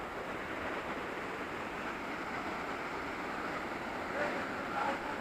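Steady rush of a waterfall, an even wash of falling water. Faint distant voices come in near the end.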